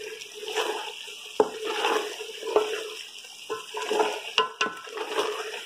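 Wet spinach and potato mixture being stirred and fried down with a wooden spatula in a metal pot: a steady wet sizzling and squelching, with several sharp knocks of the spatula against the pot. It is the bhuna stage, cooking off the remaining water so the oil rises.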